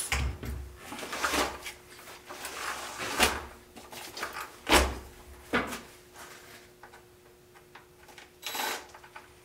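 Several separate knocks and clunks as a large 1/6-scale RC rock-racer truck is lifted, turned and set down on a workbench. Near the end comes one short whir from a cordless impact driver at a body screw.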